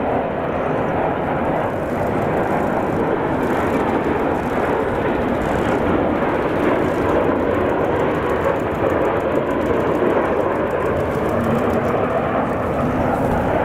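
Three Mitsubishi F-2 fighters, each with a single F110 turbofan, flying past in close formation: steady jet noise with no sudden changes.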